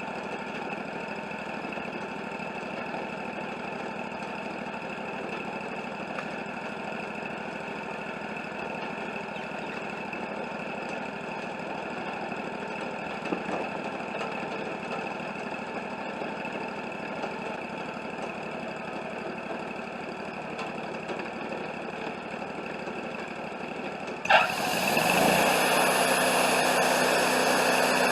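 Wood-Mizer LT40 portable sawmill's engine running steadily at low speed. About 24 seconds in there is a sudden jolt, and the mill turns markedly louder with a rushing, noisier sound that holds steady.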